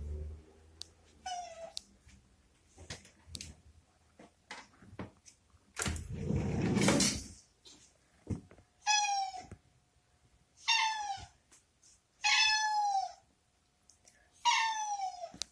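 A house cat meowing five times, each meow falling in pitch, to be let out of the washroom. A louder rustling scrape comes about six seconds in, and there are a few light knocks.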